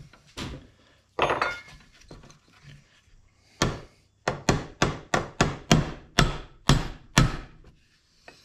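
Hammer blows on an RV waste tank valve clamped in a bench vise: a run of about a dozen sharp strikes, roughly three a second, hammering at a stuck part to knock it loose.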